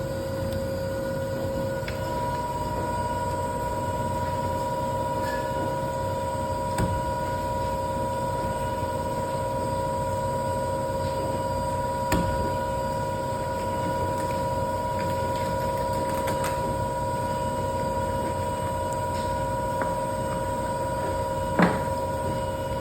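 A steady mechanical hum with two constant whining tones over a low rumble, broken by a few sharp clicks or knocks, the loudest one near the end.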